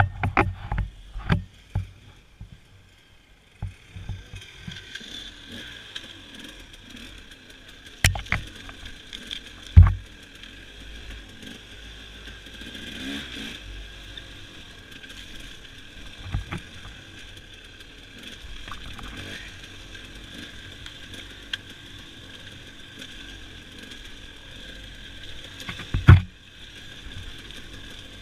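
Dirt bike ridden over a rough forest singletrack: the engine drones steadily, and the bike knocks and thumps over bumps. The knocks come in a quick cluster at the start, then singly, loudest about ten seconds in and again near the end.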